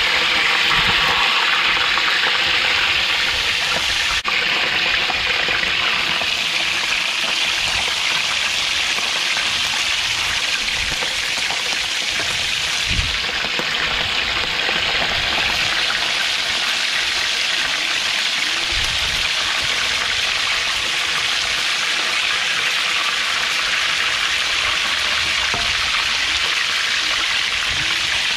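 Fish pieces frying in a pan of hot oil: a steady sizzle.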